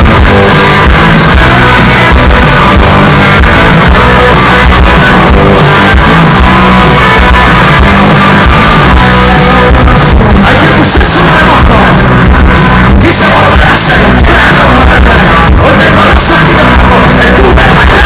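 Rock band playing live with singing, very loud and dense throughout.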